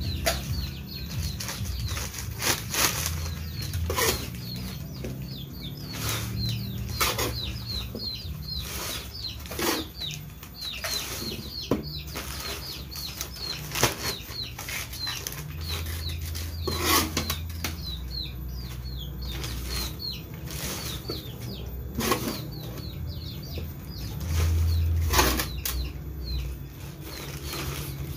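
Plastic polybags rustling and crinkling in irregular strokes as they are handled and filled by hand with a planting mix of manure and rice-husk charcoal. Short high chirps repeat throughout.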